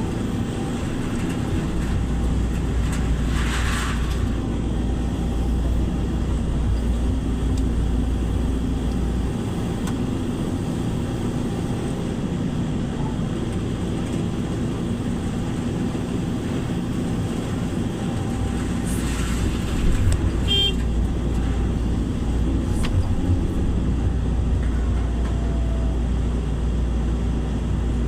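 Vehicle engine running steadily with a low rumble, with a short high beep or horn toot about twenty seconds in.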